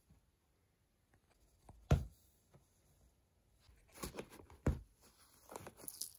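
A cat pawing and biting at a gift wrapped in brown kraft paper: a sharp thump about two seconds in, then short bursts of paper rustling and crinkling from about four seconds on.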